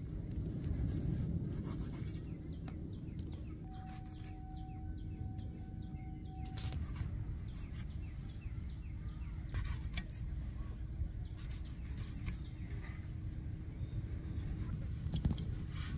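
Outdoor ambience: a steady low rumble with scattered bird chirps. Over it come small clicks and wet sounds as squid is handled and cut over a pan of water. A faint steady tone sounds for about three seconds near the start.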